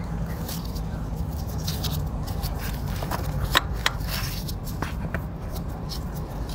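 A gloved hand fumbling among metal parts inside a motorcycle frame while working the rear shock absorber free: rubbing, scraping and small metallic clicks, with two sharp clicks about three and a half seconds in, over a steady low rumble.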